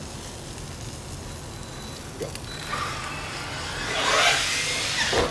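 A road vehicle driving past: its tyre and engine noise swells to a peak about four seconds in and drops away near the end.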